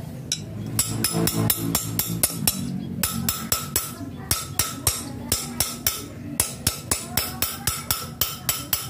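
A hammer repeatedly striking a steel punch held against the rusted bolts of an irrigation water pump's housing, each blow a sharp metallic ring. The blows settle into a steady rhythm of about two to three a second. The bolts are seized with rust, and one has already snapped.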